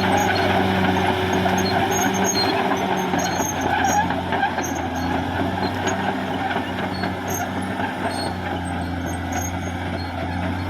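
Caterpillar D6R XL bulldozer's diesel engine running steadily under work, with a constant low hum, mechanical clatter and scattered light metallic clinks from the machine.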